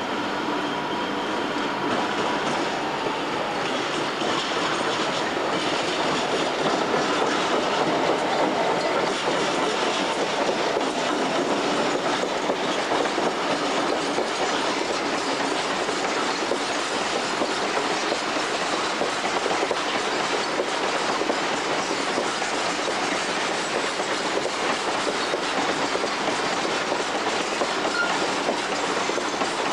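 A long freight train rolling past, its wagon wheels making a steady rumble on the rails.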